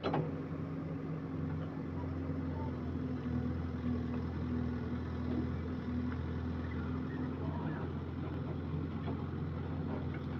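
An engine or motor running at a steady speed: a low, even hum that does not change.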